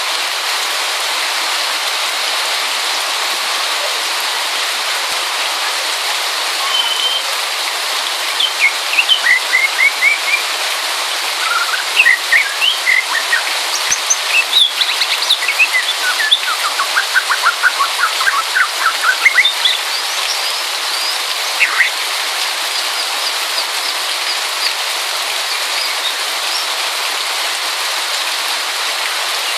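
Oriental magpie-robin singing over a steady hiss of rain: varied clear whistles, chirps and fast trills come in a run of phrases through the middle, then thin out to a few faint chirps.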